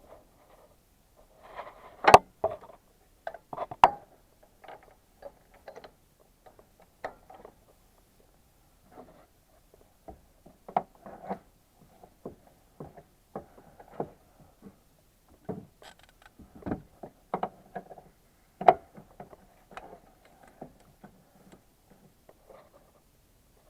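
Irregular clicks, knocks and short scrapes of hand tools and metal parts being handled during spark plug work. There are sharp knocks about two seconds in, just before four seconds and again a little after halfway.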